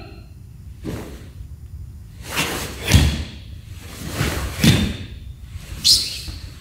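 Karate gi fabric snapping with sharp kata techniques and bare feet stamping on a wooden floor. After a faint swish about a second in, two pairs of snaps with a thud come about two and a half and four and a half seconds in, and a last sharp snap comes near the end.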